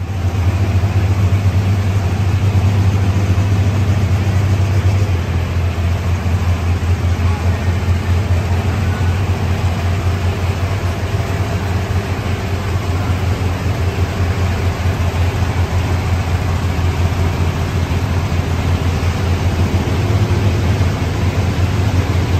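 Diesel engine of a Case IH Magnum-bodied 4.1 Limited Pro Stock pulling tractor idling steadily while it warms up, with a deep, even hum.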